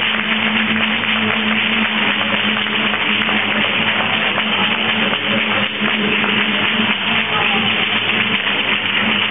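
Flamenco palmas: a line of performers clapping hands fast and densely in rhythm, mixed with the stamping of a dancer's zapateado footwork.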